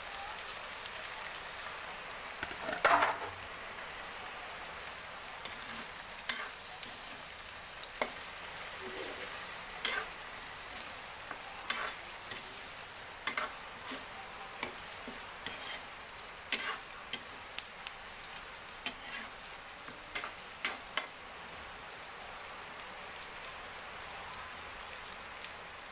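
Pork pieces sizzling in an aluminium wok, with a metal spatula clicking and scraping against the pan at irregular intervals as they are stirred.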